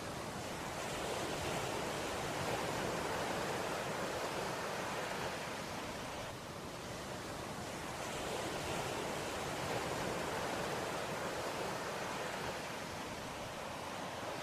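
Shallow seawater washing on a sandy shore, with wind on the microphone: a steady noise that swells and eases gently.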